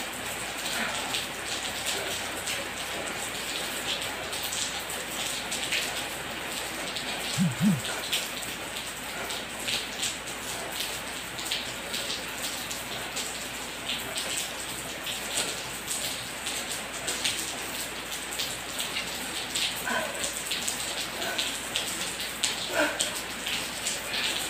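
Steady rain pattering, an even hiss dotted with many small drop ticks, with two short low sounds close together about seven and a half seconds in.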